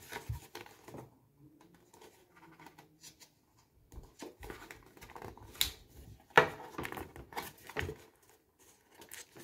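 Hands working an earbud free of its black packaging insert: scattered clicks, scrapes and rustles of the packaging, with a sharp click and a louder crackle a little past the middle.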